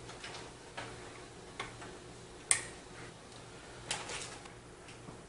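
Cables being handled and pulled through a computer case: scattered small clicks and short rustles, with one sharper click about two and a half seconds in and a little cluster near the end.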